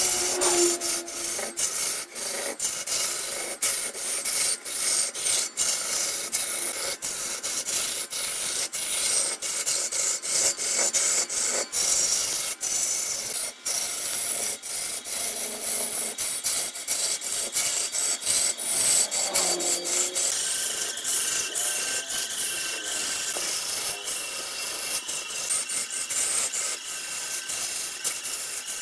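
Long-handled turning chisel cutting into a large spinning wooden log on a lathe: a steady, hissing scrape shot through with dense, irregular ticking as chips tear off.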